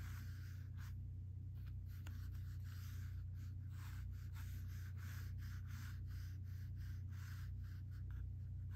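Drawing tool scratching on sketchbook paper in many short, irregular strokes as a portrait's head construction is sketched, over a low steady hum.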